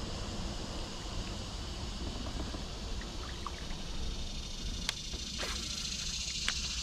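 Outdoor ambience on the water: a low, steady rumble of wind on the microphone, with a few sharp little ticks in the second half.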